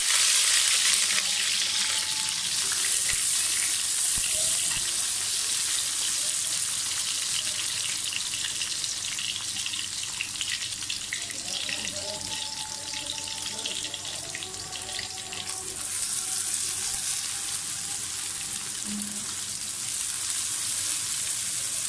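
Sliced onions sizzling in hot oil in a metal wok, loudest right after they go in and settling to a steady hiss, with a spatula stirring them near the end.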